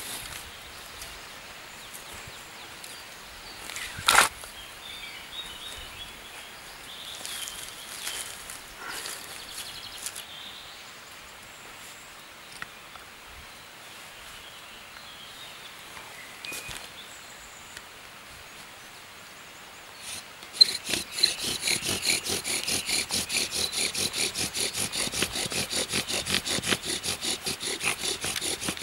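Quiet outdoor background with a few bird chirps and one sharp click about four seconds in. About two-thirds of the way through, a small hand saw starts cutting a piece of firewood in quick, even back-and-forth strokes.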